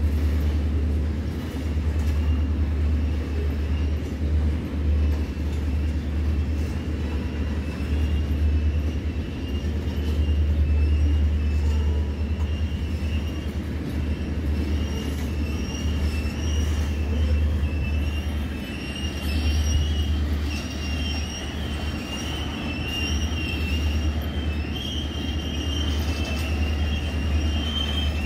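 Freight train's cars rolling past with a steady low rumble, and steel wheels squealing on the rail in a thin, wavering high pitch that grows stronger in the second half.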